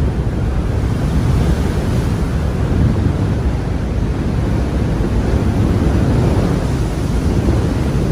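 Strong wind buffeting the microphone over a rough sea, with waves rushing against the ship.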